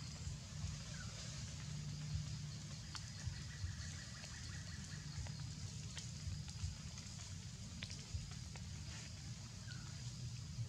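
Faint outdoor woodland ambience: a steady high insect drone over a low hum, with scattered small clicks and ticks and a couple of brief faint chirps.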